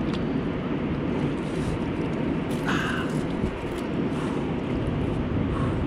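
Steady low wind rumble on the microphone over water lapping at the shoreline, with one brief, sharper sound about halfway through as a fish is lifted out of the water by hand.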